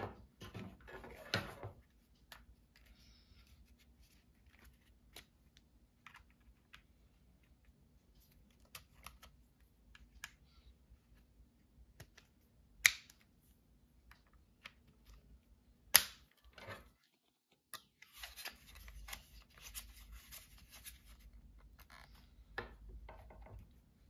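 Hands handling a plastic mini tripod and an LED light bar: soft rustles and scattered light clicks, with two sharp clicks about 13 and 16 seconds in as parts are fitted together, and a stretch of denser rustling and rattling near the end.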